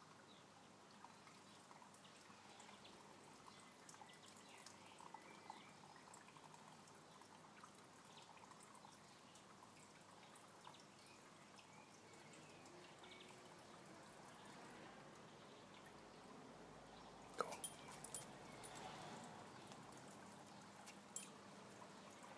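Near silence: faint outdoor background, broken by a few sharp clicks about three-quarters of the way through and one more near the end.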